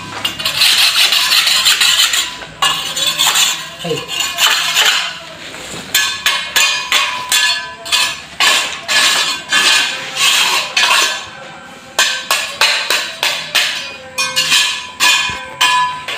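Repeated metallic clinks and scrapes, coming in short bursts about once or twice a second, with a light ringing to some of the strikes.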